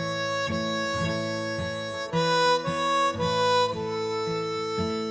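Background music: a held, wavering lead melody over a steadily repeating strummed accompaniment, about two strokes a second.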